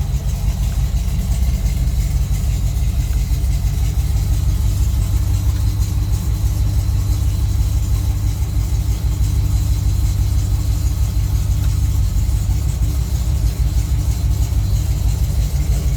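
AMC 304 V8 of a 1976 Jeep CJ7, fitted with long-tube headers, idling steadily at full operating temperature.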